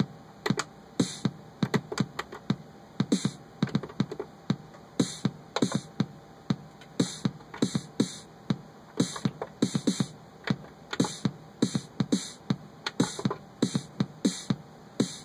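Electronic drum-machine beat triggered by a home-built MIDI step sequencer: a kick drum on every quarter note, about two a second, with snare hits being programmed into the pattern as it loops.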